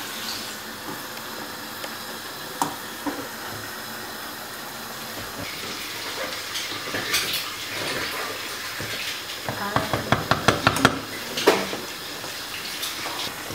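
A pot of liquid simmering on a gas hob with a wooden spoon stirring in it: a steady hiss with scattered clicks, and a quick run of knocks about ten seconds in.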